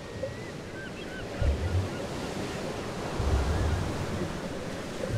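Coastal ambience of waves surging and wind, building gradually, with low swells of surf about one and a half and three seconds in and a few faint high chirps near the start.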